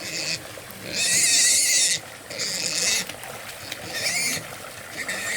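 A pig squealing in several harsh bursts, the loudest lasting about a second from about a second in, then shorter squeals.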